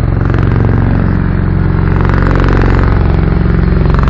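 Bell Boeing MV-22 Osprey tiltrotor flying in helicopter mode, its two big proprotors giving a loud, steady, rapidly pulsing rotor beat over a deep engine drone as it comes in to land.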